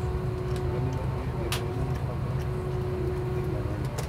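Steady low drone of an Airbus A330-900neo airliner cabin, with a constant hum tone over it and a sharp click about a second and a half in.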